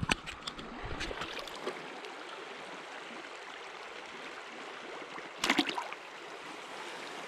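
River water flowing steadily, a soft even rush. A few brief clicks or knocks come near the start, and a short cluster of sharper ones about five and a half seconds in.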